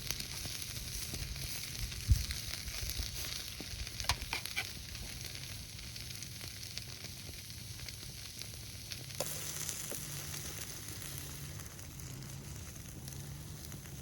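Meat sizzling on a steel griddle, a steady frying hiss. A sharp knock about two seconds in and a few metallic clinks around four seconds.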